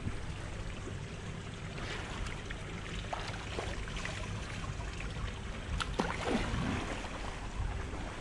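Pool water splashing and lapping from swimmers' strokes, with scattered small splashes through the middle and a steady low rumble underneath.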